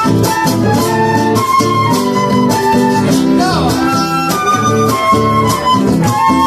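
Live Argentine folk music: a transverse flute playing a melody of held notes with short slides, over rhythmically strummed acoustic guitars.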